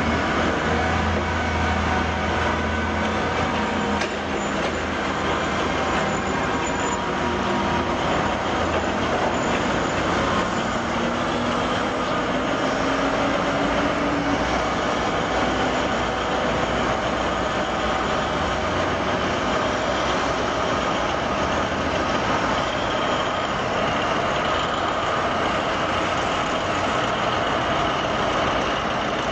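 Giant LeTourneau wheel loader running as it drives, a steady heavy diesel engine sound with a strong low rumble in the first few seconds and a tone that rises briefly about halfway through.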